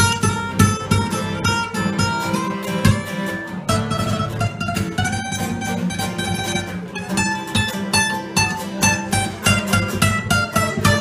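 Acoustic guitars playing an instrumental passage of a rock song, a strummed rhythm under a fast picked lead line, with no singing.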